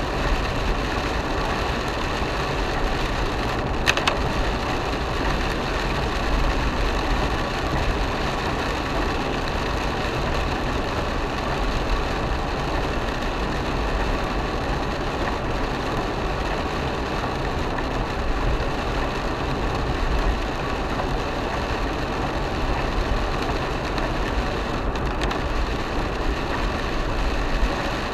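Steady road and engine noise inside the cabin of an Isuzu MU-X driving on a rain-wet highway, with the tyres hissing on the wet road surface.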